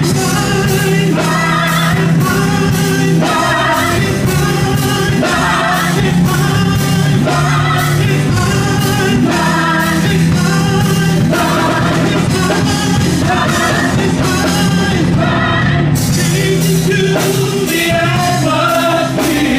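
Live gospel praise-and-worship music: several singers on microphones singing together over a band with drums and guitar, with a steady beat.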